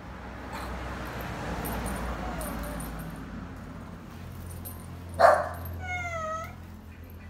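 An animal's short, harsh cry about five seconds in, then a brief high, wavering, meow-like call.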